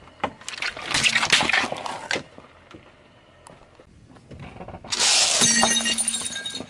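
A car tyre slowly rolls over and crushes things: first Orbeez-filled squishy toys, with a crackling burst for a couple of seconds. About five seconds in comes a loud crunching as it runs over a plate of candy-coated chocolates, cracking the candy shells and breaking the plate.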